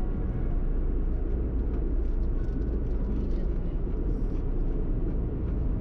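Steady low road rumble of a car driving, heard from inside the cabin: tyre and engine noise with no changes.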